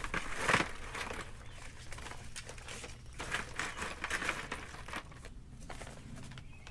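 Lava rock being emptied from a plastic bag and shifted by hand in a plastic 5-gallon bucket: irregular crinkling and rattling, loudest about half a second in and quieter near the end.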